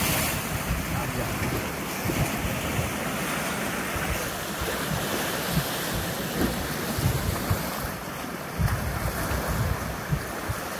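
Sea waves washing and splashing against a rocky seawall, with wind gusting on the microphone.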